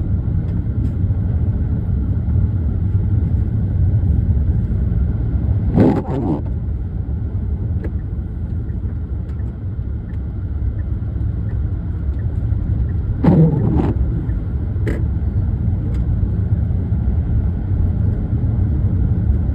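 Steady engine and tyre rumble heard from inside a car's cabin, driving on a snow-covered road. Twice, about seven and a half seconds apart, comes a short falling swish, typical of intermittent windshield wipers clearing the snow.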